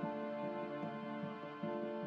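Soft background music: sustained held notes over a short repeating note pattern.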